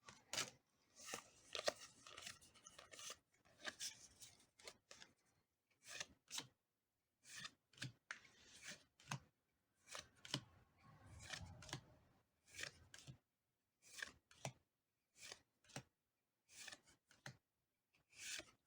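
Faint handling of a Pokémon TCG Astral Radiance booster pack being opened and its cards sorted: short, crisp rustles, scrapes and crinkles of foil wrapper and card stock in quick separate bursts.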